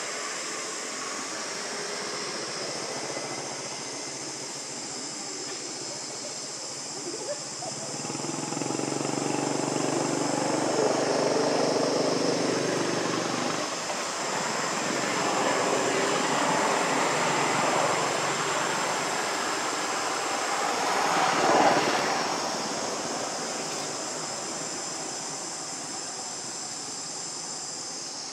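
A passing engine's drone swells from about a quarter of the way in, is loudest a little after two-thirds through, then fades, over a steady high buzz of insects.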